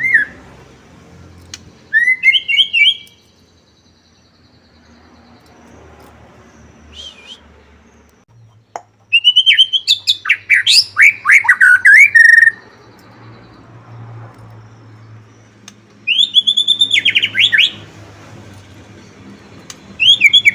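White-rumped shama in full song: loud bursts of fast, varied whistles and trills, each a second or two long with pauses between, the longest about three and a half seconds near the middle.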